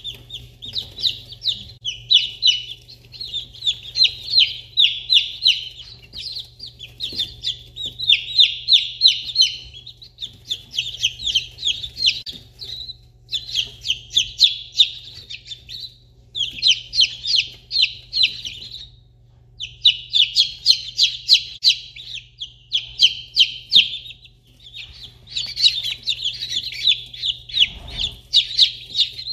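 A brood of day-old chicks peeping, many short high peeps overlapping in quick runs, with a couple of brief pauses.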